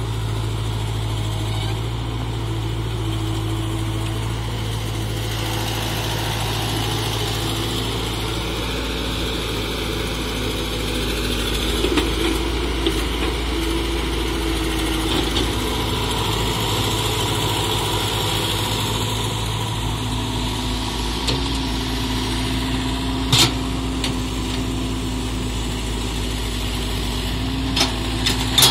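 Caterpillar tracked excavator's diesel engine running steadily while it digs, its note shifting from time to time as it works, with a few sharp knocks.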